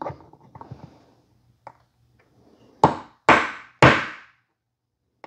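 Hammer striking a pin punch three times in quick succession, about half a second apart, driving a roll pin the last bit into an AR-15 buffer; each blow rings briefly. A few light metal clicks of setting the punch come first.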